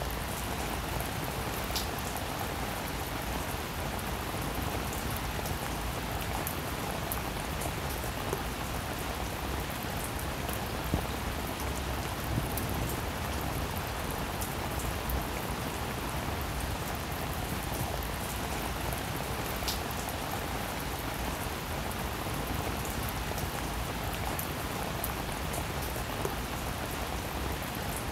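Steady rain falling on wet, puddled pavement, an even hiss of many drops with a few single drops ticking out now and then.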